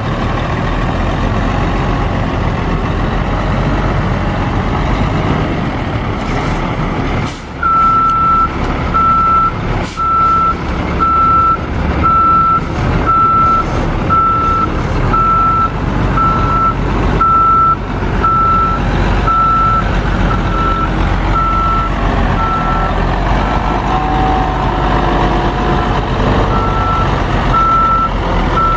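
A mixer truck's Cummins 10-litre straight-six diesel runs while the truck manoeuvres. From about seven seconds in, its backup alarm beeps steadily about once a second, the sign that it is in reverse.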